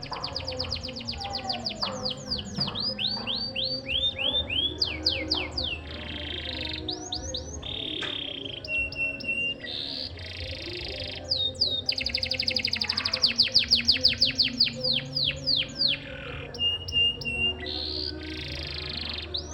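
Canary singing: fast trills of quick downward chirps, broken by rasping rolls and short held notes.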